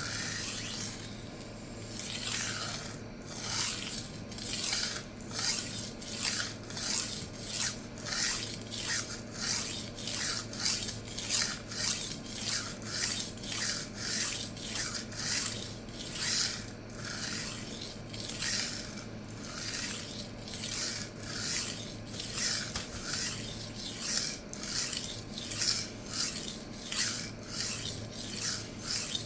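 Steel knife edge rasping back and forth on a coarse 200-grit diamond sharpening plate wet with a soapy lubricant, in steady, even strokes of about two a second. The strokes start about two seconds in.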